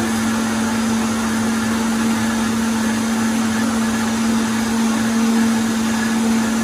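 Vitamix Total Nutrition Center blender running steadily at one pitch, blending a green vegetable smoothie with protein powder.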